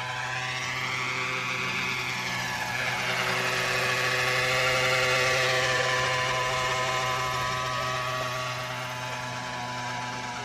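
Gas-engined 800-size Century RC helicopter in flight: a steady engine-and-rotor drone that swells louder toward the middle as it passes closer, then eases off.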